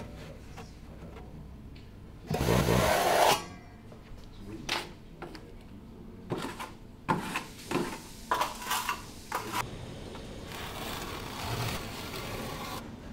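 Steel trowel scraping and spreading sealing adhesive on a waterproofing membrane. One loud scrape comes a couple of seconds in, then short scattered scrapes and taps, and a steadier spreading sound near the end.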